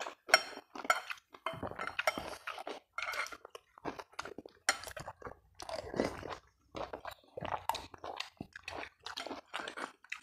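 Close-miked eating of mie ayam chicken noodles: chewing and slurping of noodles in many short, irregular bursts, with a spoon and fork clinking against a glass bowl now and then.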